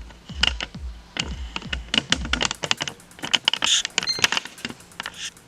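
Rapid clicking and tapping, like typing on a computer keyboard, over a low pulsing sound that drops out about halfway through.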